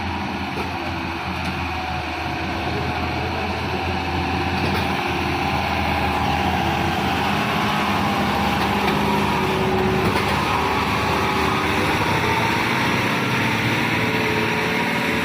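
Heavily loaded truck's diesel engine running steadily under load, its pitch wavering slowly and the sound growing a little louder over the first half.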